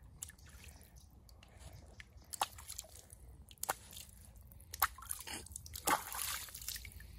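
Bare feet kicking and swishing in shallow lake water: a handful of irregular small splashes and sloshes, with a longer stretch of splashing near the end.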